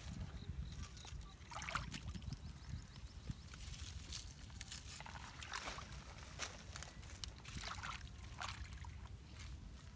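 Hands digging in shallow muddy water, with water sloshing and mud squelching in scattered bursts as wet clumps are scooped out.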